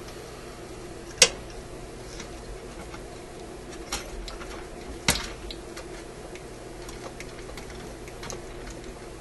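Sharp clicks and faint ticks from fingers working a magic eye tube socket and its wires loose on a vacuum tube radio chassis. The loudest click comes about a second in and another about five seconds in, over a faint steady hum.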